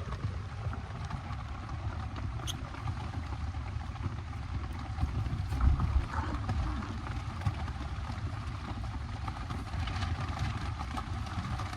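Heavy rain falling steadily on the tarp roof of a bike camper, with a low rumble and a few light ticks. There is a brief louder bump just before six seconds in.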